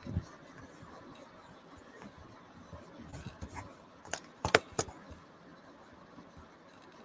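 Quiet room tone with a few short, sharp clicks about four and a half seconds in.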